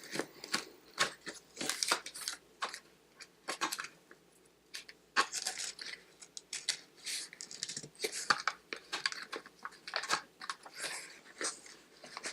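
A box and its packaging being opened by hand: irregular tearing, crinkling and rustling.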